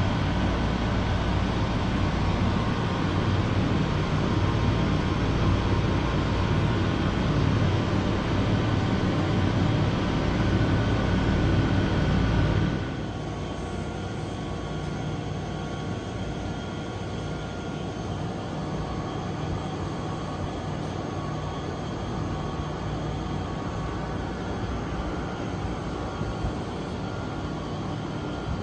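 Steady mechanical hum with faint steady tones, typical of a refrigerated vending machine's cooling unit and fans running; it drops suddenly to a quieter hum about thirteen seconds in.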